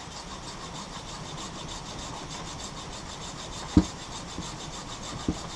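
Hacksaw blade sawing back and forth through an old, brittle nylon bushing in the mounting eye of an outboard's power trim and tilt unit, in steady repeated strokes. The bushing is being cut so that it can collapse and be pushed out. A single sharp knock comes nearly four seconds in.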